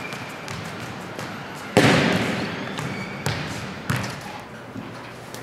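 An American football hitting a hardwood gym floor: one loud thud about two seconds in, then a few smaller bounces, each echoing in the large gym.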